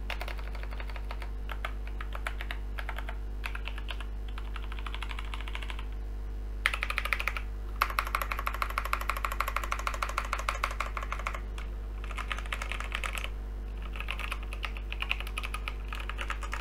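Typing on a Logitech G512 mechanical keyboard with GX Brown tactile switches and Razer PBT keycaps: streams of keystroke clicks, with the fastest, loudest run in the middle and short pauses between runs.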